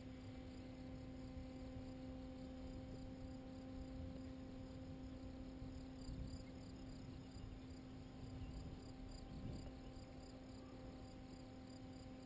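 Faint, steady drone of a distant paramotor engine holding one pitch, with insects chirping in a fast, regular pulse and a low rumble of wind on the microphone.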